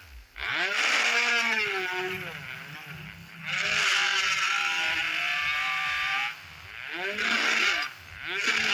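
A 775 DC motor with a homemade drill chuck, spinning up and winding down again and again, its whine rising and falling in pitch.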